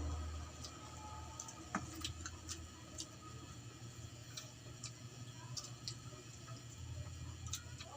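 Eating sounds: scattered, irregular small clicks and smacks of chewing close to the microphone, over a steady low hum.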